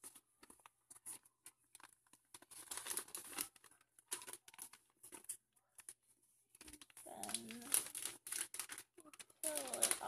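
Self-adhesive contact paper crinkling and crackling in irregular bursts as hands smooth and reposition it on a cardboard box. A voice is heard briefly in the last few seconds.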